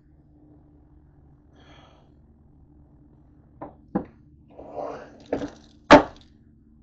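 A few sharp knocks and clatters of kitchen items being handled, the loudest about six seconds in, with a short rustle just before, over a faint low steady hum.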